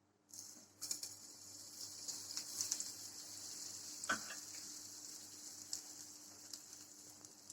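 A spoonful of butter sizzling and crackling as it melts in a hot pan, the hiss starting just after the start. There is one light click about four seconds in.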